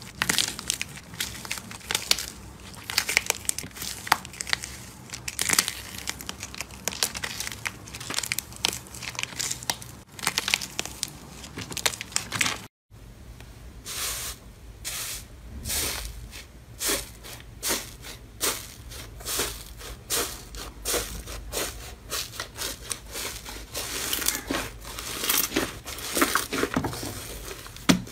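Slime with a dried, crispy crust being squeezed and broken with the fingers: a dense run of crackles and crinkles. After a brief cut, palms press again and again into a tray of crusted slime, each press giving a burst of crackling.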